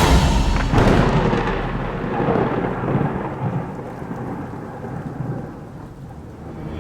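Thunder: a sharp crack about a second in, then a long rumble that slowly fades away.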